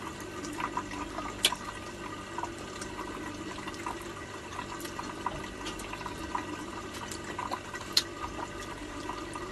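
Crab being picked apart and eaten by hand: scattered small clicks and crackles of shell and chewing, with two sharper clicks about a second and a half in and near the end. Underneath runs a steady watery trickle.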